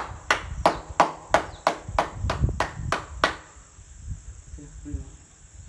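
A long wooden stirring paddle knocking on a large aluminium cooking pan, about eleven even strokes at about three a second that stop about three seconds in. Crickets chirr steadily behind.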